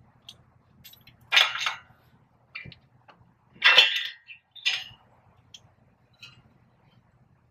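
Metal clinks and clanks from the front brake rotor and hub assembly being moved by hand while the right drive shaft is worked free. There are two loudest clanks about a second and a half and four seconds in, with lighter ticks between.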